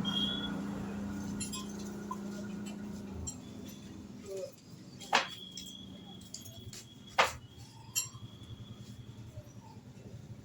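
Sharp metallic clinks of hand tools or small metal parts, three of them about five, seven and eight seconds in, with a thin high ringing after the first. A low engine hum fades away over the first few seconds.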